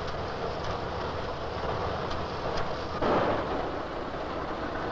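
Barn manure conveyor running: a steady mechanical rumble and clatter that swells louder briefly about three seconds in.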